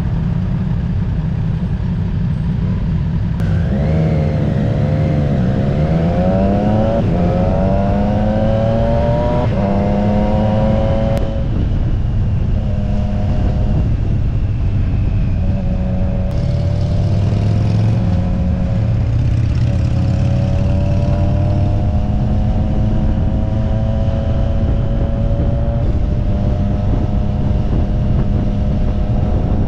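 Triumph Street Triple RS's three-cylinder engine accelerating through the gears about four seconds in, its pitch climbing and dropping back at each of three upshifts. It then runs steadily at cruising speed, easing off briefly now and then.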